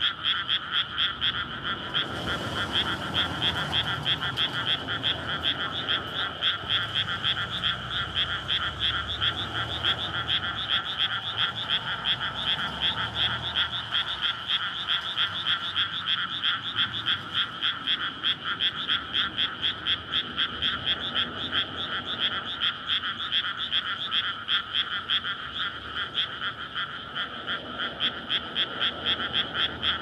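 Loud breeding chorus of many frogs in a flooded rice paddy: males calling in dense, rapid pulsing croaks that overlap into a continuous din. A faint low rumble sits beneath the chorus for several seconds in the first half.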